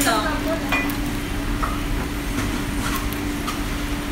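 Steady table-side din of beef sizzling on a tabletop Korean barbecue grill over a constant fan-like hum, with a few light clicks of chopsticks and dishes.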